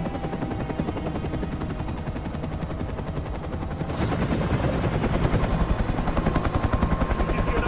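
Helicopter rotor chopping in a fast, even beat over the turbine drone, muffled as heard inside the cockpit at first, then louder and sharper from about four seconds in as the helicopter hovers low over a rooftop helipad to land.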